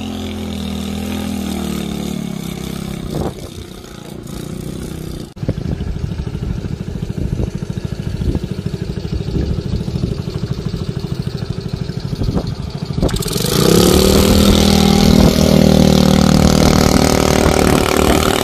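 Honda engine of a homemade mini speedboat. First it is running out on the water with a wavering pitch, then after a cut it idles close by with a rapid, even putter. About thirteen seconds in it revs up loudly as the boat pulls away.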